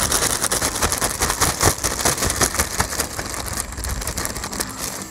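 Thin plastic bag crinkling and rustling as it is turned inside out and shaken to work a sticky ball of pizza dough free: a dense, irregular crackle.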